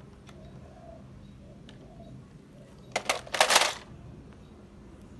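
Hard plastic toys clattering and knocking together for under a second, about three seconds in, with a few faint clicks before it.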